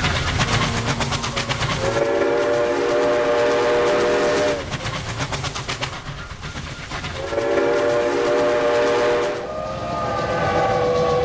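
Train sound effects: fast, even wheel clatter on the rails, then two long horn blasts, each a chord held for about two seconds, and a further, higher horn tone near the end.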